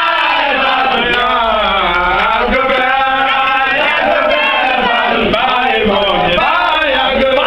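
A large crowd of men chanting loudly together in a Baye Fall religious chant, the massed voices sliding up and down in long drawn-out phrases without a break.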